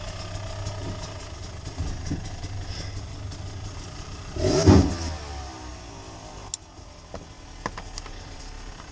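A motor vehicle engine running close by. It swells to a loud peak with a shifting pitch about four and a half seconds in, then fades back to a steady low drone. Near the end come a few sharp clicks.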